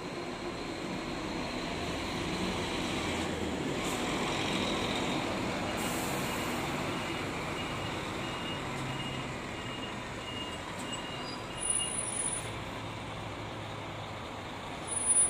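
Scania K400 coach's diesel engine pulling away, growing louder over the first few seconds and then fading as it drives off. A series of short high beeps about twice a second runs through the middle, and two brief, loud, high-pitched sounds come near the end.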